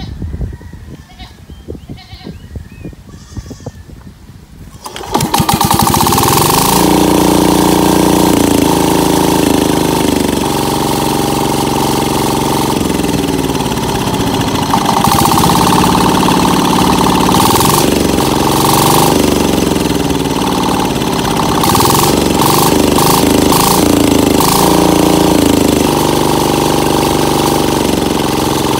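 A YAMMA 12 hp single-cylinder diesel engine catching about five seconds in and then running loud and steady, its speed shifting up and down several times as its controls are worked.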